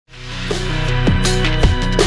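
Background music with a steady beat, fading in over the first half-second.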